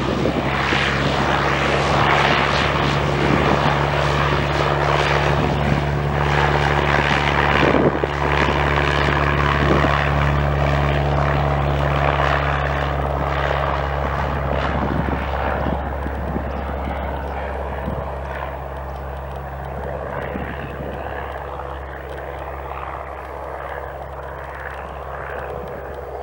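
Cessna 172R Skyhawk's four-cylinder Lycoming engine and propeller at takeoff power, a steady drone with an even pitch through the takeoff roll and lift-off. It slowly fades over the second half as the aircraft climbs away.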